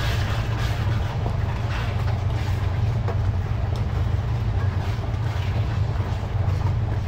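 Wooden spoon stirring and scraping ground-meat sauce in a metal pan, over a steady low rumble.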